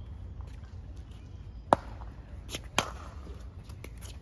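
Pickleball paddles striking a hard plastic pickleball in a rally: sharp pops, the loudest about one and a half seconds in, then two more in quick succession a second later.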